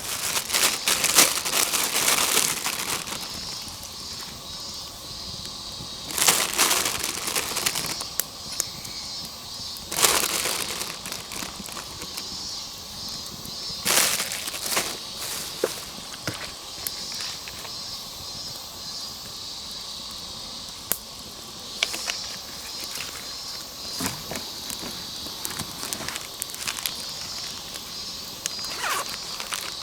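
Several bursts of rustling and crunching from dry leaves and twigs, the loudest in the first three seconds, with shorter ones scattered through, over a steady high chirring in the background.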